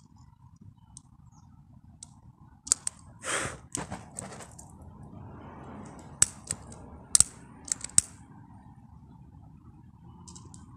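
Long-nosed utility lighter's trigger clicked repeatedly, about eight sharp irregular clicks of the igniter as it is tried on lighter fluid, with a short hiss about three seconds in.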